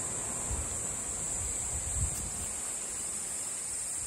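Crickets chirring in a steady high-pitched drone, with a couple of soft low thumps about half a second and two seconds in.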